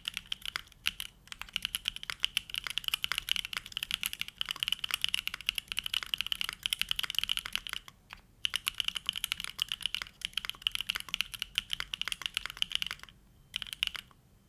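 Fast continuous typing on a custom mechanical keyboard: a Neo65 with a carbon-fibre plate, hand-lubed WS Onion switches and GMK-style ABS keycaps, giving dense rapid keystrokes. There are brief pauses about 8 seconds in and about 13 seconds in, and the typing stops just before the end.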